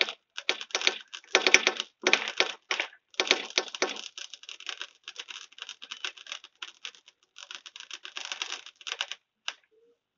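Fireworks crackling: dense rapid clusters of small pops in bursts, loudest in the first few seconds, thinning out and stopping near the end.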